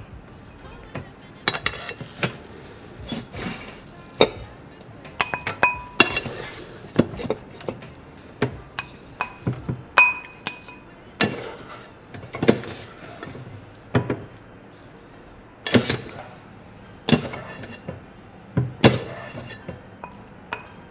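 Plastic rice paddle scooping cooked rice into a white ceramic bowl, knocking and clinking against the bowl at irregular intervals; a few of the knocks ring briefly.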